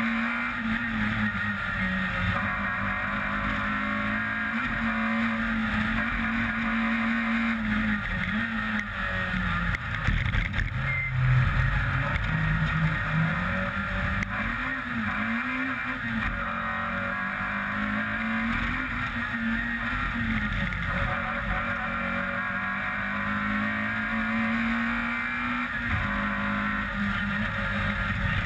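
Peugeot 106 rally car engine at full effort on a special stage, its pitch climbing and dropping again and again as it runs up through the revs, shifts and lifts for corners. A brief louder low rumble comes around the middle.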